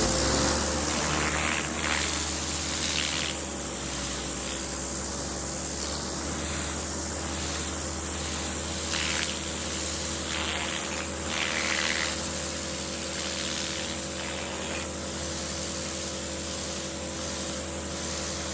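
Pressure washer cleaning a patio: a steady hiss of the water jet over the steady hum of the machine's pump motor, stopping abruptly at the very end.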